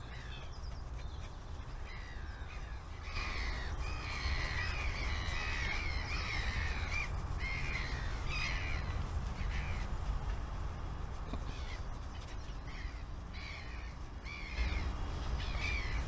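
Birds calling outdoors, a long series of short, bending calls that starts about three seconds in and carries on, over a steady low rumble.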